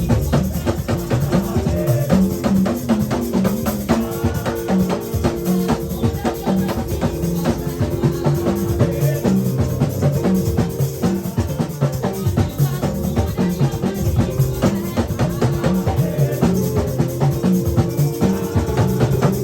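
Live church band playing instrumental music: a drum kit keeping a steady, busy beat under a bass line and sustained chords that change every few seconds.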